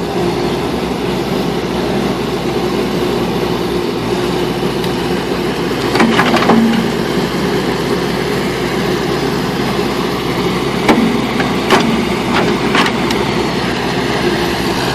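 Backhoe engine running steadily under load, with a few sharp metallic clanks from the machine working, one about six seconds in and several more in the second half.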